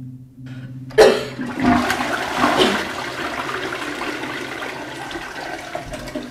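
Toilet flushing. It starts suddenly about a second in with a click, then a rush of water that slowly tapers off.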